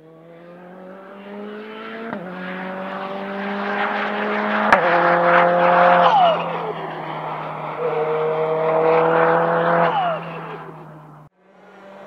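Hyundai RM19 prototype's mid-mounted turbocharged four-cylinder engine pulling hard through two upshifts, each marked by a sharp crack, then its pitch drops away as the throttle is lifted. It builds again and falls off once more before the sound cuts off suddenly.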